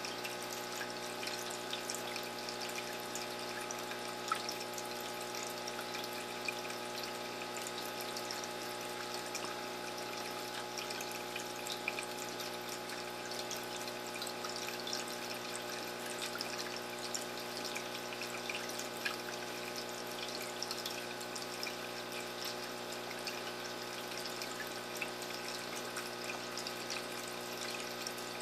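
Aquarium filter return splashing and trickling steadily into the tank water, with scattered small drips and a steady hum underneath.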